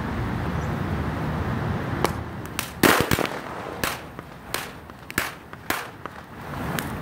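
Lump of sodium metal reacting on the surface of pond water: a run of sharp cracks and pops, about ten over the last five seconds, starting about two seconds in and loudest near three seconds, as the hydrogen it gives off ignites.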